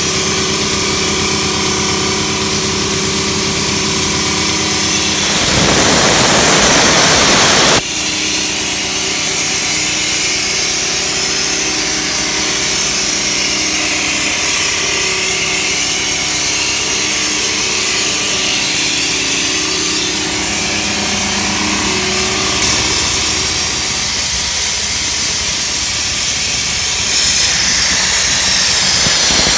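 Ford gasoline engine of a Grimmer Schmidt 125 CFM skid-mounted air compressor running steadily, with a strong steady hiss over the engine note. A louder rushing noise swells over it for a couple of seconds about five seconds in, and again near the end.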